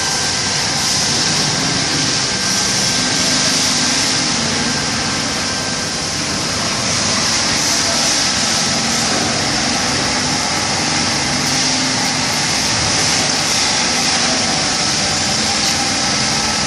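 Steady machinery noise with a strong high hiss, unchanging throughout, with faint voices under it.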